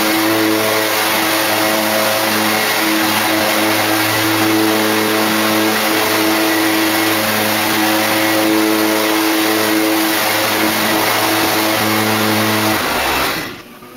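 Gas backpack leaf blower running steadily at high speed, a loud engine hum under a rush of air, then cutting off abruptly near the end.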